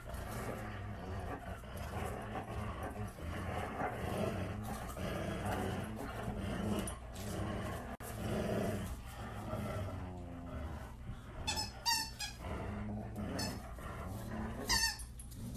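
Two dogs growling steadily in play as they tug against each other over a toy, a continuous low rumble. Two brief high-pitched squeaks break through near the end.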